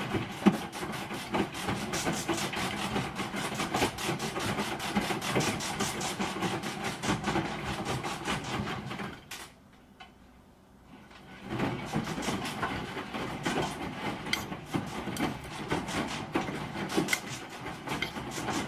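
A broken washing machine running with a dense, uneven rattling and knocking clatter. The noise stops for about two seconds midway, then starts again.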